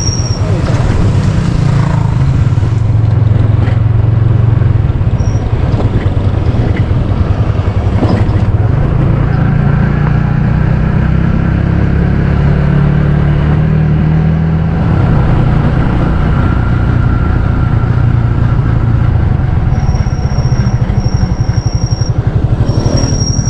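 Motorcycle engine running steadily at riding speed, heard from the rider's seat.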